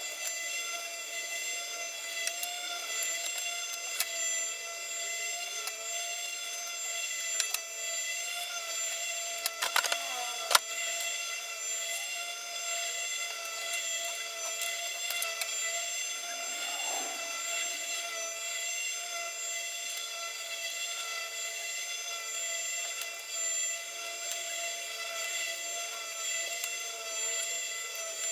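A steady whine of several high tones, with a cluster of sharp clicks and scrapes about ten seconds in, while cardboard is being cut with a utility knife.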